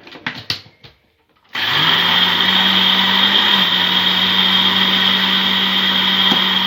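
A few light clinks, then about a second and a half in an electric mixer switches on, quickly spins up and runs steadily at one speed, beating eggs and sugar for cake batter.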